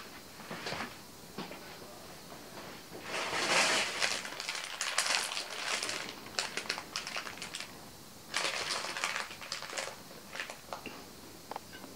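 Plastic food packaging crinkling as it is handled, in two long bursts of rustling, then a few light taps and clicks near the end.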